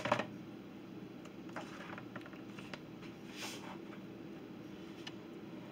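Blue slime being poked and squished by hand in a clear plastic container: a sharp knock against the container at the start, then a few soft wet squelches, over a steady low hum.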